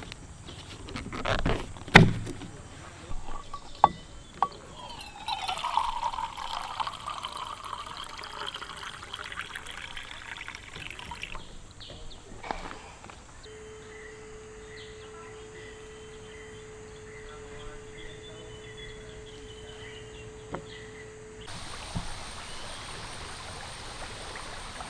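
A few knocks of handling, then water poured into a container for about six seconds. Later a steady single tone sounds for about eight seconds.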